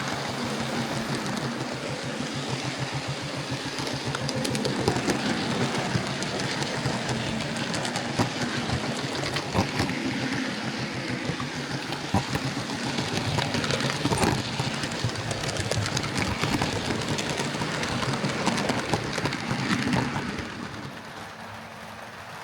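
Hornby R2169 Merchant Navy "Clan Line" OO gauge model locomotive running along the track: a steady whir of motor and gears with rapid clicking of the wheels over the rails. About twenty seconds in, the sound drops away sharply.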